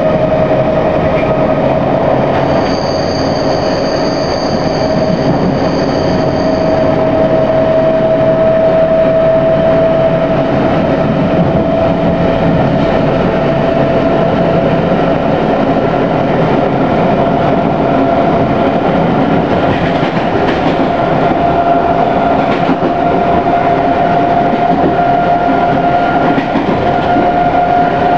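London Underground C Stock train running along the track, a steady rumble with a whining tone that slowly rises in pitch as it gathers speed. A high-pitched squeal lasts for about four seconds near the start.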